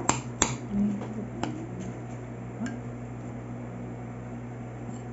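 Three sharp clicks within the first second and a half, over a steady low hum that carries on alone afterwards.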